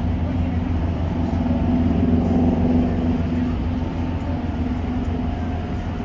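Cruise ship machinery droning steadily: a deep, even hum of engines and ventilation with a steady humming tone on top, swelling slightly a couple of seconds in.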